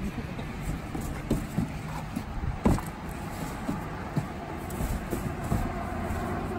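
Cardboard boxes knocking and scraping against a car's seat and door frame as they are pushed inside, a series of irregular thumps, the loudest about two and a half seconds in, over a steady outdoor rumble.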